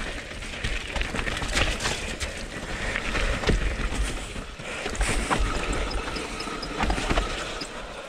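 Mountain bike running down a rough dirt trail: tyres rolling over roots and rocks with a low rumble, and frequent clatters and rattles from the bike throughout.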